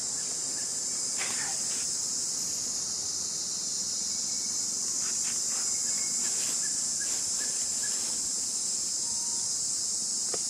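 Steady, high-pitched insect chorus droning without a break, with a few faint short calls over it about a second in and again around the middle.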